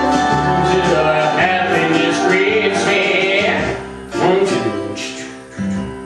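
Instrumental break in a pop song's backing track, with plucked guitar and other instruments playing and no voice. It dips in level after about three and a half seconds, with a couple of accented notes after that.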